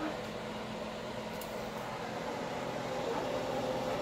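A steady, even hiss and hum of machine or room noise, with a faint steady tone coming in about three seconds in.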